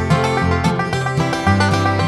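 Background music with quick plucked-string notes over a bass line.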